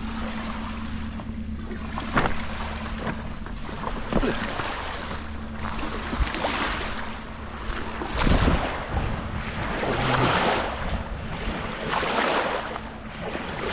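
Small river waves lapping and splashing against the stone steps of the embankment, with gusts of wind on the microphone; the washes swell and fall every second or two. A steady low hum runs underneath and stops about eight seconds in.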